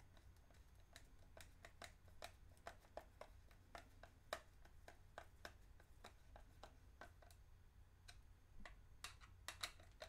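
Faint, irregular clicking and ticking, a few clicks a second, as a hand screwdriver drives a small metal screw into a 3D-printed plastic part. A few louder clicks come near the end.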